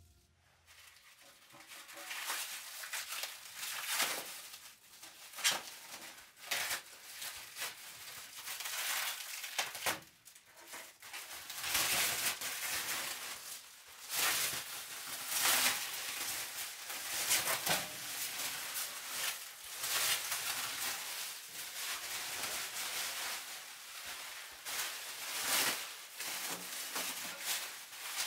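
Clear plastic wrapping being pulled and crumpled off a sheet-metal tent stove: an irregular crinkling and rustling that comes and goes in quick bursts.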